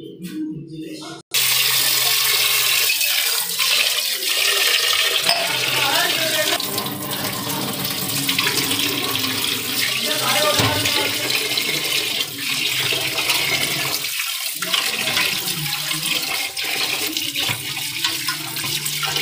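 Tap water running hard into a steel pot of raw rice as the rice is washed by hand. The rush of water starts abruptly about a second in.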